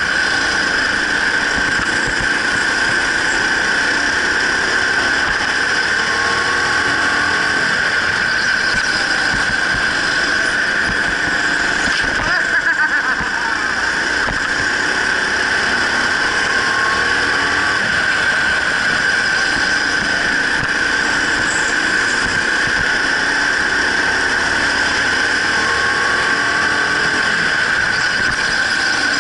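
Go-kart running at racing speed on an indoor track, heard from on board: a loud, steady high-pitched whine over motor and tyre noise, with a brief jolt near the middle.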